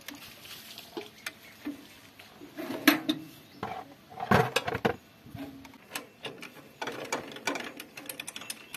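Irregular clinks and knocks of metal tools and parts being handled during tractor hydraulic repair work, with a louder clatter about three seconds in and again a second later.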